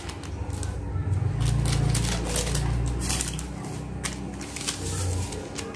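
A foil-plastic powder sachet crinkling and rustling in the hand as it is opened and emptied into a bowl, with many small crackling clicks.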